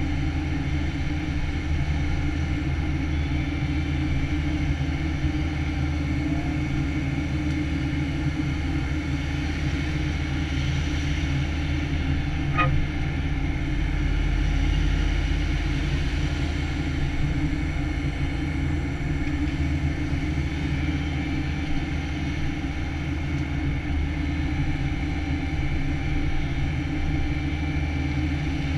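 Takeuchi TB175 excavator's diesel engine and hydraulics running steadily while the machine digs, heard from inside the cab, with a low hum and a brief click near the middle.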